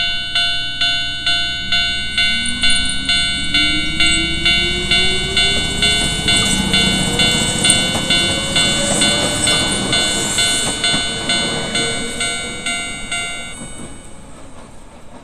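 Japanese railway level-crossing warning bell ringing about twice a second, with a slightly cracked, distorted tone, while an electric train goes through with its motor whine rising in pitch and wheel noise. The bell stops near the end and the train noise fades.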